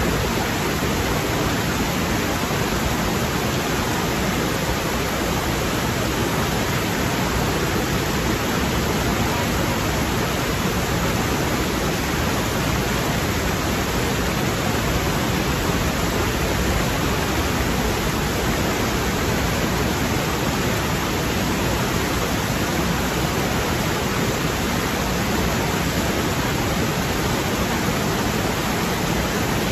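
Rocky mountain stream rushing over boulders and small cascades: a steady, unbroken rush of water.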